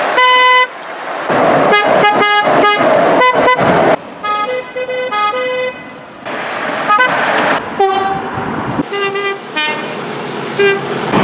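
Train and truck horns in a rapid run of separate blasts, mostly short toots with a few longer ones of up to about a second and a half. Each blast is a pitched chord. The pitch and the background noise change abruptly from one blast to the next, as clip after clip is cut together.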